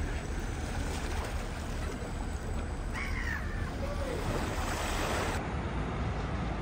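Outdoor lakeshore ambience: steady wind noise on the microphone over lapping water, with a couple of short calls near the middle.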